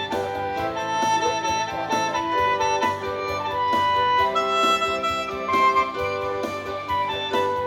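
Instrumental music from a small live ensemble: a melody of held notes over a light steady beat.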